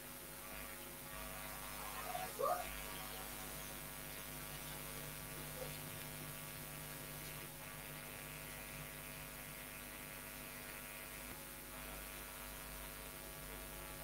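Steady electrical mains hum with many overtones, running on its own. About two and a half seconds in comes a short rising chirp.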